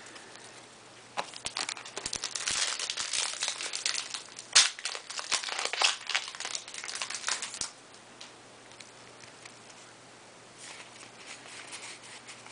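Foil booster pack wrapper crinkling as it is handled, in a run of sharp crackles that starts about a second in and stops after about six and a half seconds, with one louder snap in the middle. Softer rustling of trading cards near the end.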